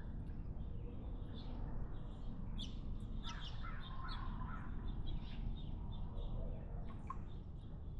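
Birds chirping and calling in a quick, overlapping series of short notes, busiest about halfway through, over a steady low background rumble.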